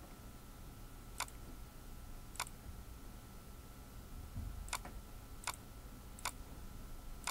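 Computer mouse clicking: single sharp clicks about a second apart, with a longer gap in the middle, over a faint steady hum.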